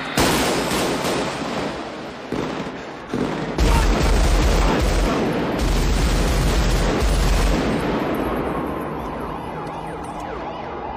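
Sustained automatic rifle fire in a city street, the shots running together into a dense, echoing clatter. It starts abruptly, and a heavy low rumble joins it about a third of the way in.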